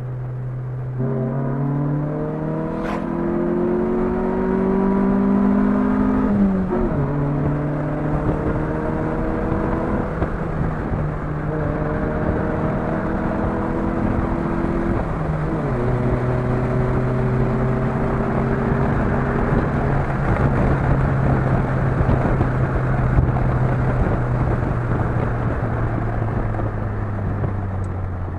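Chevrolet Vectra 2.2 8-valve four-cylinder with a sport exhaust (no catalytic converter, straight pipe to a turbo muffler) accelerating hard through the gears. The engine note climbs, drops at a gear change about six seconds in, climbs again, drops at another shift about halfway through, then holds at a steady high-speed cruise.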